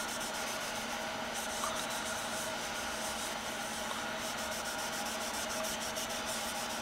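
Cotton rag rubbing wood stain onto a small wooden cylinder case, a steady, even wiping.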